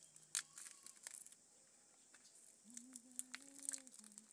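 Dried smoked fish being broken apart by hand: faint dry crackling and tearing, with a few sharp clicks.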